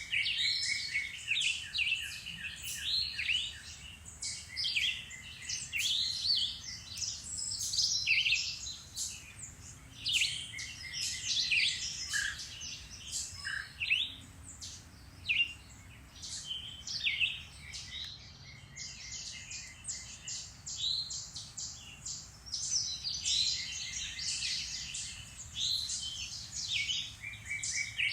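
Several songbirds singing and chirping at once in a spring woodland, a dense chorus of overlapping high chirps and trills with a repeated rapid trill at the start and again near the end.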